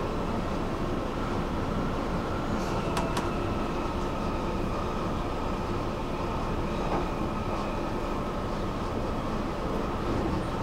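Stockholm metro train running steadily, heard on board: a constant rumble and rushing noise with a steady whine, and a couple of sharp clicks about three seconds in.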